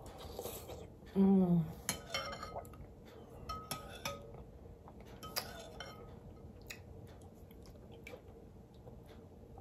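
Metal spoon clinking against a large glass bowl of soup-like purée: several light clinks with a brief ring over the first six seconds or so. About a second in, a short falling hum of the eater's voice, the loudest sound.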